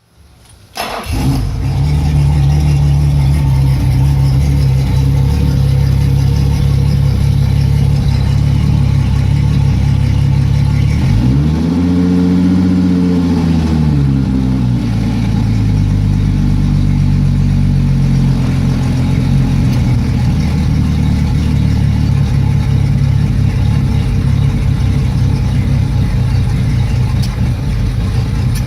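Yamaha F225 V6 four-stroke outboard idling roughly. About eleven seconds in, the revs rise and fall back over roughly three seconds, then it settles into idle again.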